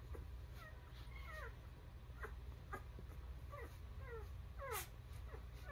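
Newborn puppies squeaking and whimpering: a string of short, faint, high cries that slide down in pitch, one or two a second.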